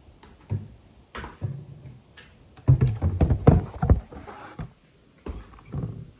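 A run of knocks and thuds from a glass bowl of thick soap mixture, with a metal spoon in it, being moved about on a countertop. The knocks come thickest and loudest about three to four seconds in, with a few more near the end.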